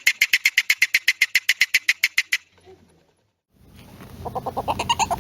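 Polecat giving a rapid clucking chatter, about eight sharp clucks a second, which cuts off suddenly a little over two seconds in. After a brief silence a second, lower-pitched run of rapid clucks starts up.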